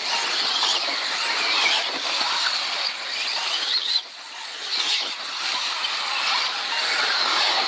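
Radio-controlled off-road model cars racing round the track, the high whine of their motors rising and falling as they accelerate and brake, with a brief lull about halfway through.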